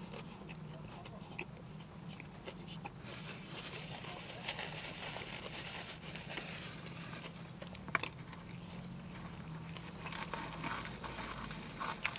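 A person chewing a mouthful of burger with the mouth closed, faint wet mouth sounds over a steady low hum. A single sharp click comes about eight seconds in.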